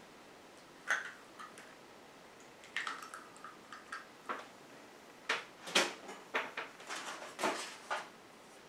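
Eggs cracked on the rim of a stoneware mixing bowl and broken into the cornmeal batter: sharp taps and shell crackle, a single tap about a second in and a quicker run of small clicks and knocks in the second half.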